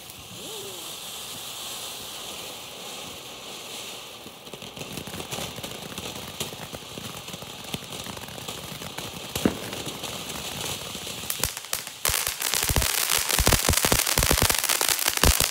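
Ground fountain firework spraying sparks with a steady hiss; crackles join in about four seconds in and build into a dense, loud crackling for the last few seconds.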